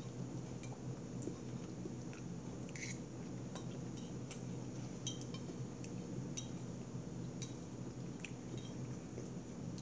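Metal fork clinking and scraping against a ceramic bowl as food is scooped up: scattered light clicks, a few at a time, over a steady low hum.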